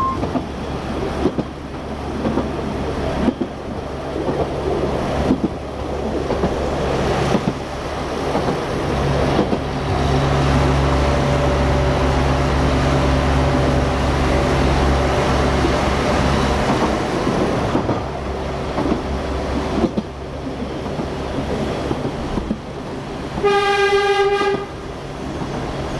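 Narrow-gauge diesel-hauled train running, heard from the rear of an oil tank wagon: steady wheel and rail noise with the locomotive's low engine drone, which swells in the middle. Near the end the locomotive's horn sounds once for about a second and a half.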